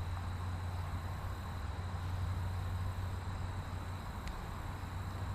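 Steady low hum of distant road traffic under a steady outdoor background hiss, with one faint click about four seconds in.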